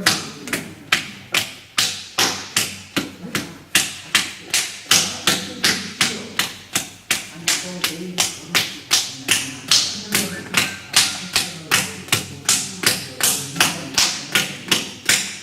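A lump of potter's clay being struck over and over in a steady rhythm, about two to three sharp slaps a second, to soften clay that has stiffened.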